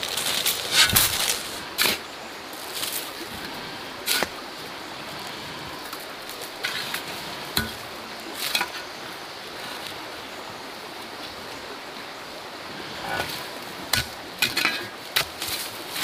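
A long-handled hoe chopping into soil: irregular sharp strikes and scrapes of the blade, in bursts, with a pause of several seconds before a final cluster.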